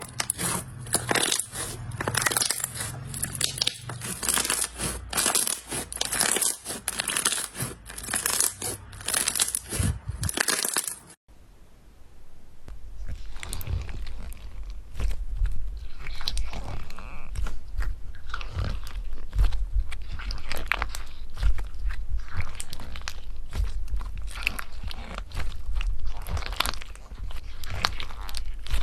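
Crunchy slime being squeezed and pressed by hand, a dense run of small crackles and pops. About eleven seconds in it goes quiet for a moment, then similar crackling resumes over a low rumble.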